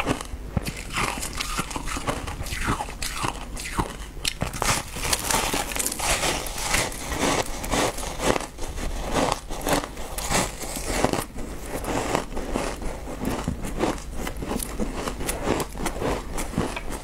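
A person biting into and chewing clumps of frozen shaved ice, a dense, irregular run of sharp crunches.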